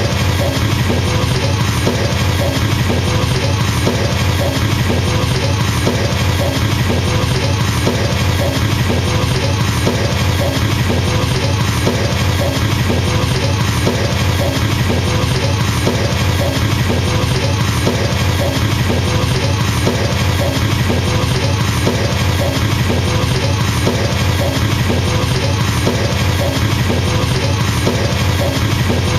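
Double bass drumming on a drum kit: an unbroken, very fast stream of kick-drum strokes in a machine-gun rhythm, holding a steady level.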